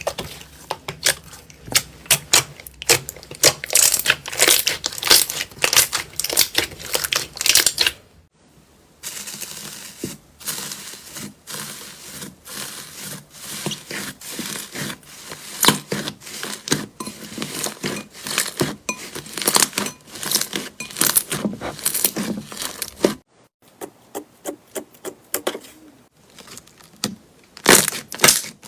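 Crunchy slime being squeezed and pressed by hand, giving dense runs of small crackles and pops, broken off briefly twice.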